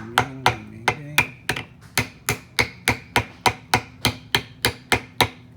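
Rapid, even light taps, about three and a half a second, as a wrist pin seal is tapped evenly down into its bore in a Detroit Diesel 8V-53 piston.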